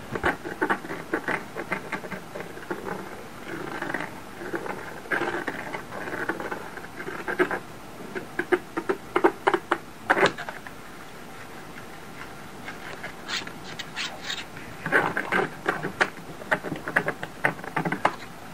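The stick of a cat-teaser wand scraped and scratched against a surface, in quick runs of rasping strokes with a short pause a little past the middle, a noise made to draw a cat's attention.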